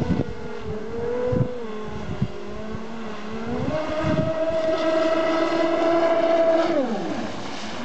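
Twin brushless electric motors of a large RC speedboat whining at speed. The pitch sags at first, steps up about four seconds in, holds, then slides down near the end as the motors slow.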